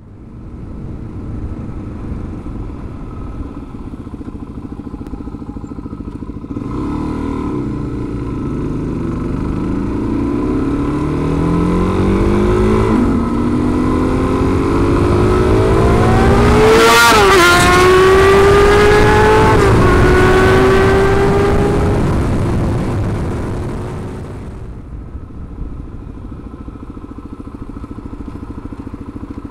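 Dual-sport motorcycle engines running steadily, then a motorcycle accelerating with its pitch climbing for about ten seconds. The engine is loudest about two-thirds of the way through, where the pitch drops suddenly, then falls away. It settles back to a steady run near the end.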